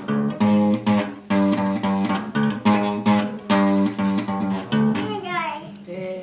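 Background music on plucked acoustic guitar, picked notes in a steady rhythm.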